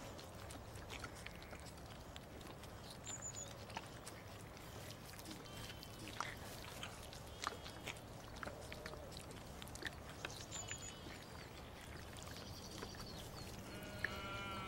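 Lamb sucking at a plastic milk bottle's teat, making faint wet smacking clicks over a quiet countryside background. There are a few high bird chirps, and near the end an animal's call, a sheep's bleat.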